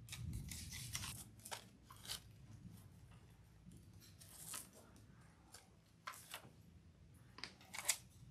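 Faint rustling and crinkling of artificial flowers, ribbon and mesh being handled and worked into a grapevine wreath. The sound comes in short scattered spells, busiest in the first second, with a couple of sharper crinkles late on.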